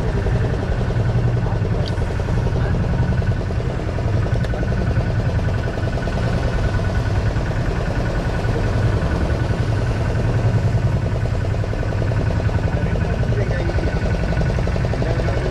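Boat engine running steadily at a constant speed, a continuous low drone with a faint steady whine above it.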